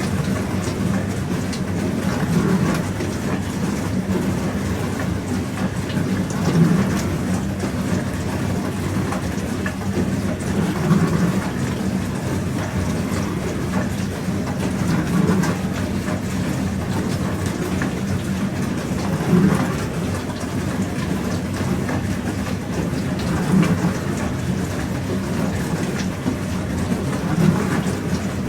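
Pro Action PRSLG96W slimline dishwasher running a wash, water spraying and splashing inside the tub over a steady pump hum, with a swell in the sound about every four seconds.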